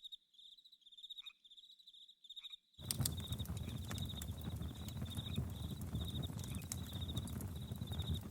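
Crickets chirping in a steady rhythm, about three chirps a second, over a crackling campfire. The fire's crackle is absent for the first few seconds, where only the crickets and two short falling calls sound, and comes back just under three seconds in.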